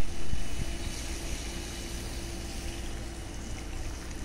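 Steady outdoor rumble and hiss, with a loud burst right at the start.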